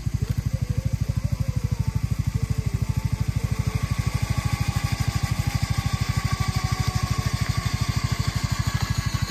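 ATV engine idling steadily, an even, rapid chugging of about a dozen pulses a second with no revving.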